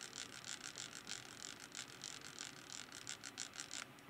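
Light, rapid ticking and scratching, about five a second, as the freshly oiled gears of a Bolex camera's spring motor are worked around by hand with a cotton swab to spread the lubricant; it pauses briefly near the end.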